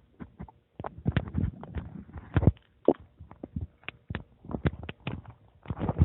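Stomach gurgling: irregular pops and bubbly rumbles of gas and fluid moving through the gut, busiest from about a second in and again near the end.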